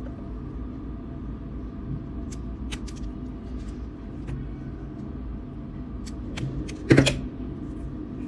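Hand-work handling noises: scattered light clicks and rustles, with one louder sharp snap about seven seconds in, over a low steady hum.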